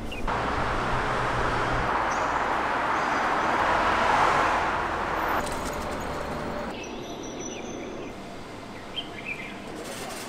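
A vehicle passing, its road noise swelling to a peak about four seconds in and then fading away, leaving quieter background with a few bird chirps near the end.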